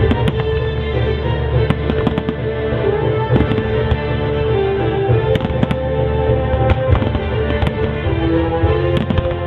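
Fireworks display: repeated sharp bangs of bursting shells, several a second at irregular spacing, over a low rumble, with a music soundtrack of held notes playing underneath.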